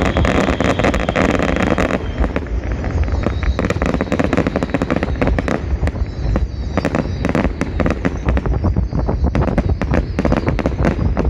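Fireworks display going off: a dense, continuous stream of bangs, pops and crackles over a low rumble.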